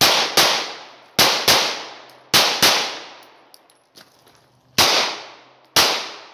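Gen 1 Arex Delta 9mm pistol fired eight times: three quick double taps about a second apart, then two single shots about a second apart. Each shot is a sharp crack that trails off in a long echo.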